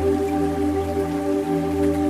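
Slow ambient background music: long sustained notes held over a steady low drone.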